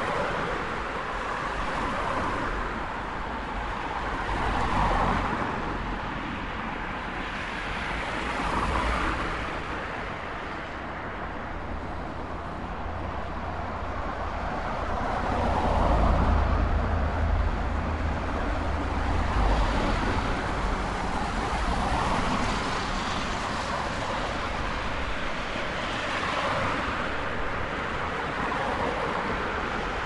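Urban street traffic: a steady wash of road noise with cars passing one after another, each swelling and fading every few seconds. About halfway through comes the loudest pass, with a deep rumble.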